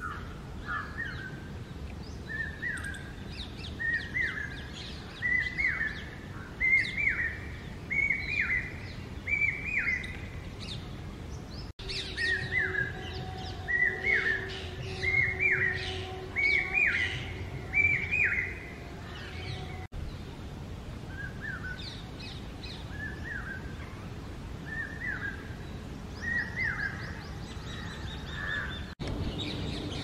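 Common hawk-cuckoo (brain-fever bird) calling: its repeated phrases come in runs, each phrase a little higher and louder than the last, with the third run quieter. A faint steady drone lies under the middle run.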